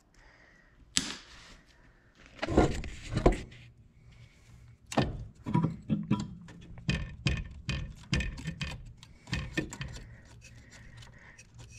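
Hands and a tool working the fuel hose and clamps at a small inline fuel filter in an engine bay: handling noise about two and a half seconds in, then a quick, irregular run of small metallic clicks and rattles.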